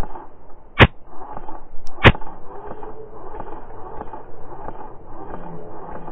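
Two sharp cracks from airsoft gunfire, a little over a second apart, over a steady rustling background.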